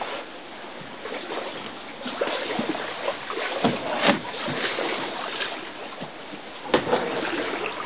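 Water sloshing and splashing as a person wades through shallow water, pushing a small boat by hand with its motor raised. A few sharp knocks, the loudest near the end.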